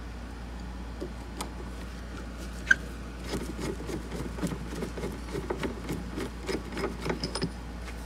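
Hand Phillips screwdriver backing a screw out of a plastic trim cover: one sharp click about two and a half seconds in, then a run of small quick clicks and scrapes, over a low steady hum.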